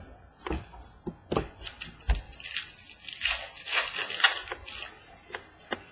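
Basketball trading cards and their pack wrapper being handled: a run of sharp clicks and crinkling, papery rustles, densest from about three to four and a half seconds in.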